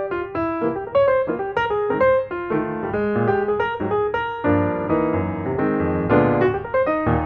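Background music: a piano tune of quickly struck notes over a steady bass line.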